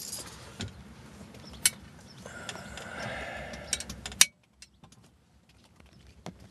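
Rustling and clicks of a metal control wheel lock being worked out of a Cessna 172R's control column, with a sharp clack about four seconds in, after which it goes nearly quiet apart from a few faint ticks.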